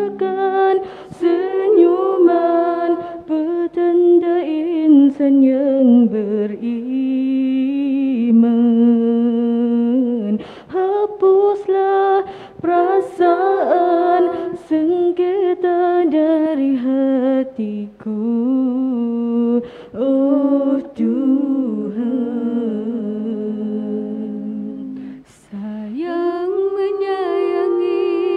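Female nasheed group singing a cappella in harmony through microphones, with vibrato on the held notes and brief pauses between phrases.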